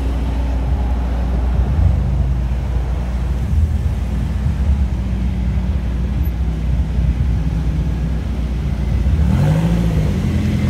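Car engine running with a low, steady rumble as a car rolls slowly past close by, then revving up and back down twice near the end.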